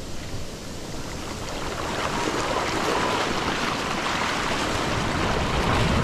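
Ocean wave wash rushing up over wet sand, a steady hiss of foam and water that slowly grows louder.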